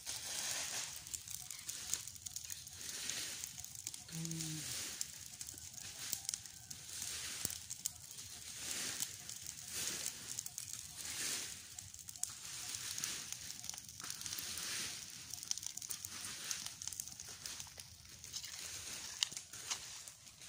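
Burning piles of dry leaves crackling, with many sharp little pops over a hiss that swells and fades about once a second. A brief low call sounds once, about four seconds in.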